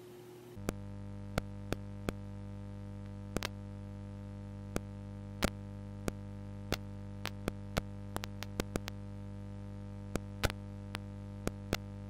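NAD 7020 receiver's output: a steady mains hum with small pops and crackles at uneven intervals, about twenty of them, bunched together a little past the middle. The hum comes in about half a second in. The pops persist once the receiver has settled after switch-on, and the owner suspects its ageing power-supply capacitors.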